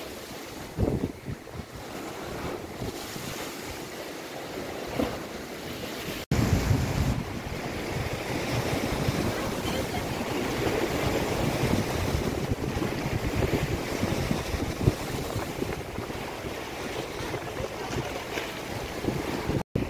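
Wind-driven lake waves washing and breaking, with strong wind buffeting the microphone. The sound jumps louder at a cut about six seconds in.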